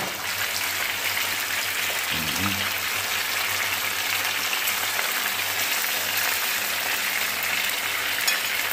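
Fish frying in hot oil: a steady, even sizzle.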